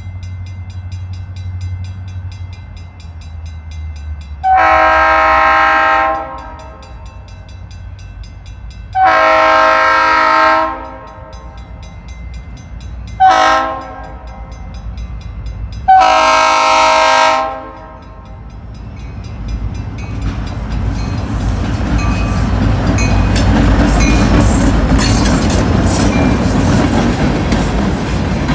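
EMD GP40-2 diesel freight locomotive's horn sounding the grade-crossing signal: two long blasts, a short one and a long one. The train then arrives and passes close by, its engine rumble growing loud over the wheels clacking on the rail joints.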